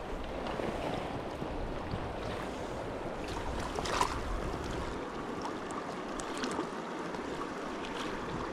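Shallow mountain stream running over a rocky bed, a steady rush of water, with one light knock about four seconds in.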